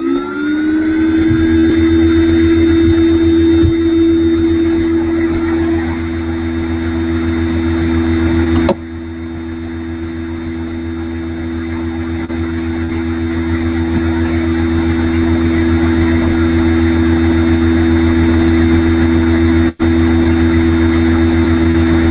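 Loud steady electrical hum and hiss on an online conference-call audio line, two steady low tones over a deeper drone. A click comes about nine seconds in, after which the noise drops and slowly swells back, and it cuts out briefly near twenty seconds.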